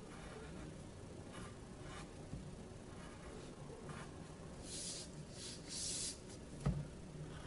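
Pencil drawing on paper: soft scratchy strokes, a few faint ones at first, then louder strokes lasting about a second each between roughly five and six seconds in. A single dull knock follows shortly after.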